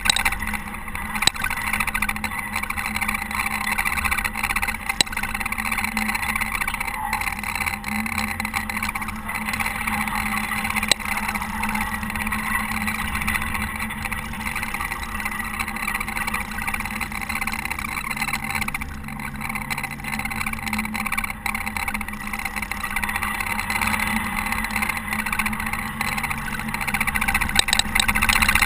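Caterpillar TH330B telehandler's diesel engine running steadily under load while plowing snow, with a few light clicks.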